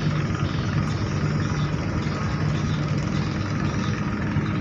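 Passenger ship's engine running with a steady low drone, heard on deck as the ship manoeuvres alongside to dock.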